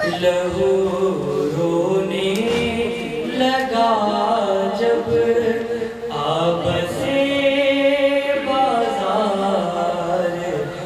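A man's voice chanting an Urdu noha, a mourning lament sung unaccompanied, in long held melodic lines through a microphone.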